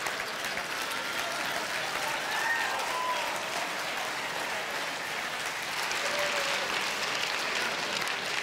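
Audience applauding at a steady level.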